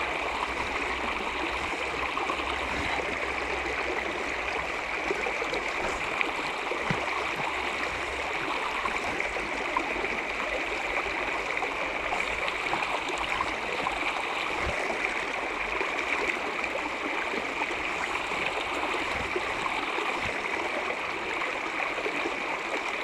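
A mountain trout stream running steadily over rocks, a continuous rushing and gurgling of water.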